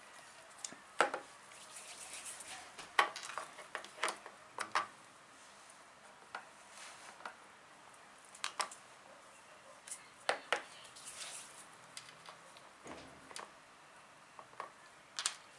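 Plastic Play-Doh toys, a toy pie dish and small tools, being handled and set down on a tabletop: irregular light clicks and knocks, a dozen or so, over a soft handling rustle.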